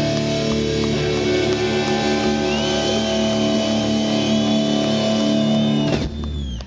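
Rock band playing live, electric guitar and bass holding sustained chords with a gliding high guitar line, then cutting off sharply about six seconds in, leaving a brief fading ring.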